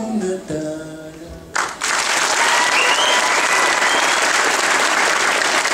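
The closing notes of the song die away. About a second and a half in, an audience breaks into loud, steady applause.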